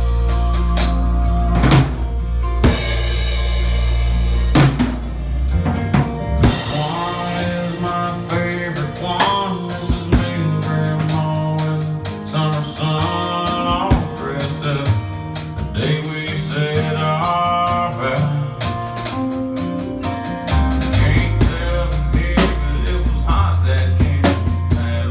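Instrumental passage of a country song, a drum kit playing bass drum, snare and rimshots over a steady bass line and other pitched instruments.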